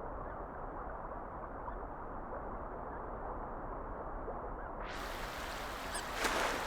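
Faint, short hiccups now and then over a steady background hiss, with a clearer one near the end.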